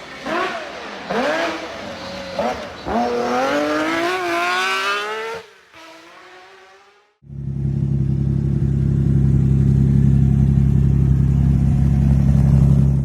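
Lancia Stratos's 2.4-litre Dino V6 revving hard, its pitch climbing and falling back several times in the first half, as with quick gear changes. After a brief dip, a loud, steady engine note is held without change.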